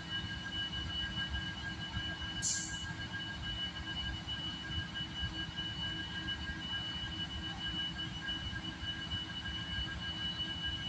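Union Pacific diesel locomotives moving slowly through the yard: a low rumble with a steady high-pitched whine over it, and a brief hiss about two and a half seconds in.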